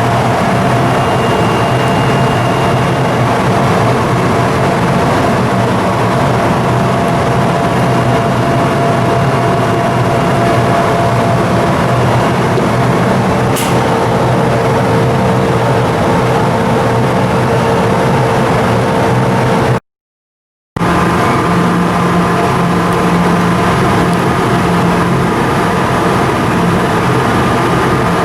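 Cargo ship's diesel engine running steadily and loudly, with a deep hum and several steady tones. About twenty seconds in, the sound cuts out for under a second, then resumes with a slightly different set of tones.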